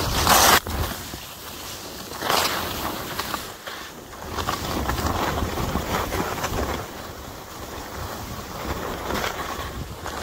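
Skis sliding and turning on snow, with a loud hissing swish of a turn near the start and another about two seconds in, over wind rumbling on the microphone.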